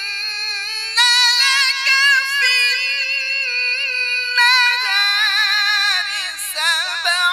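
A man reciting the Quran in a high, melodic style, through a microphone: long held notes with wavering ornaments, with new phrases starting about a second in and again just past the middle.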